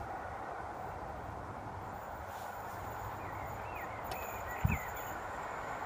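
Trackside outdoor ambience: a steady hiss of distant background noise with a few short bird chirps about three seconds in, and a single low thump a little later.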